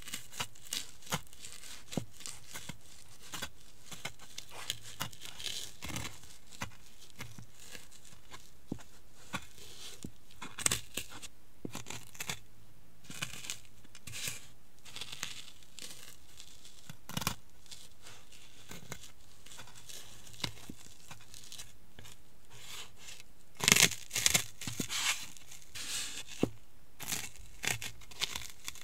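Crunchy Cheetos being crushed and ground under the soles of high-heeled sandals on a hard floor: scattered crisp crunches and crackles, with a louder flurry of crunching late on.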